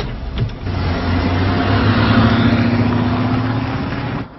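A motor vehicle running close by: a steady engine hum under a rushing noise that swells and then cuts off abruptly near the end.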